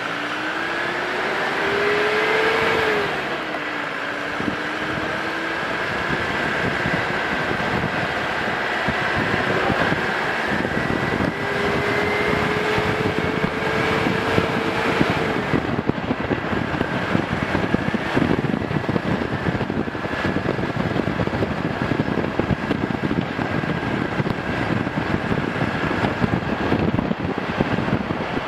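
Motor vehicle's engine pulling through the gears. Its pitch climbs, drops at a gear change about three seconds in, and climbs again further on. Steady wind and road noise follow as the vehicle travels.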